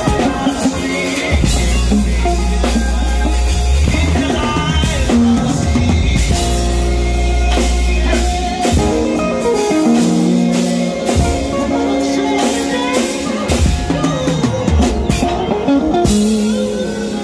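A band playing live music, with a drum kit played throughout and many sharp drum and cymbal hits over sustained pitched notes.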